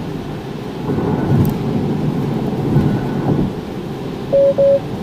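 Tesla Model 3 cabin at highway speed in heavy rain, with a steady low rumble of tyres on the wet road and rain on the car. Near the end come two short, loud beeps of the same pitch: the car's chime for a brief warning message, taken by the driver for a keep-hands-on-the-wheel reminder.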